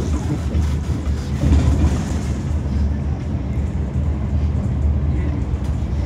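Inside a moving bus, a steady low rumble from the engine and road.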